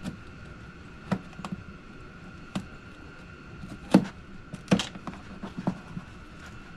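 Scattered clicks and knocks of hands pulling the mesh of a Jeep door's storage pocket out against the plastic door panel, the loudest knocks about four seconds in and again just before five seconds, over a faint steady hum.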